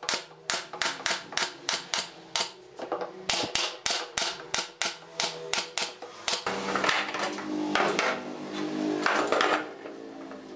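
A quick, even series of sharp taps, about three or four a second, for the first six seconds or so. Then metal clattering and ringing, which fits steel pipe clamps being handled and set down on a wooden workbench.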